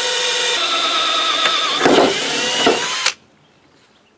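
Cordless drill boring a hole through a mower deck: a steady motor whine whose pitch sags and wavers under load as the bit cuts, with a rough grinding patch near the middle, then stops abruptly about three seconds in as the bit goes through.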